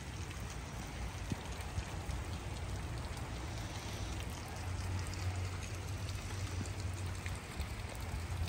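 Light rain falling, a steady fine patter, with a low steady rumble underneath.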